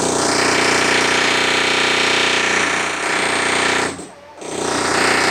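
Loud power drilling, a rapid hammering drill running steadily, breaking off for about half a second about four seconds in and then starting again.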